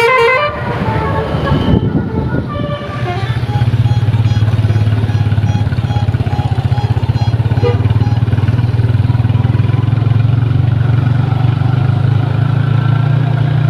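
The last notes of a bus's multi-tone 'telolet' horn in the first couple of seconds, then a loud, steady vehicle engine running close by from about three seconds in.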